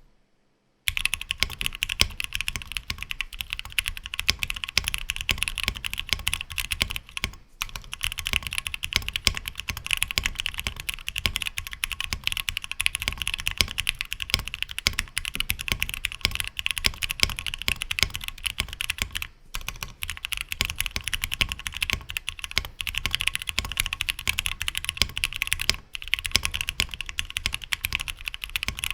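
Fast, continuous typing on a custom o-ring-modded Tofu60 mechanical keyboard with lubed Gateron Black Ink linear switches, a 3D-printed PLA plate and PBT keycaps. The keystrokes start about a second in and break off briefly three times.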